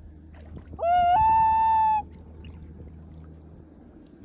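Common loon giving one wail about a second long, rising and then stepping up to a higher held note.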